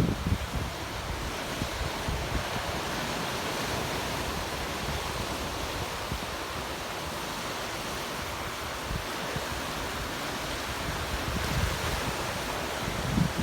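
Ocean surf washing steadily onto the beach, with strong wind buffeting the microphone in low rumbling gusts that grow stronger near the end.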